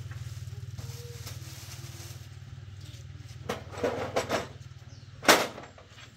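Metal clanks and clatter as a cantilever toolbox is opened and its trays fold out: a cluster of knocks near the middle, then one sharp, loud clank about five seconds in. Under them a small engine runs steadily in the background, its pulsing hum slowly fading.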